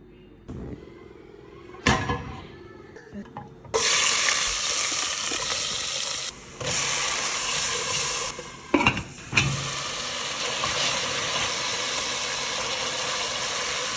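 Food sizzling in a hot pan. It starts suddenly about four seconds in, after a few knocks, and runs steadily, dipping briefly twice, with a few sharp utensil knocks a little past the middle.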